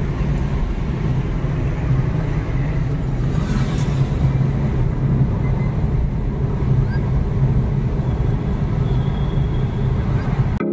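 Inside a moving Maruti Suzuki Dzire: steady engine and road rumble while driving, with a brief hiss about three and a half seconds in.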